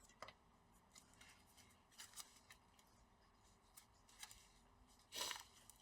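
Near silence with faint scattered clicks and a brief rustle near the end, from small laptop parts being handled during disassembly.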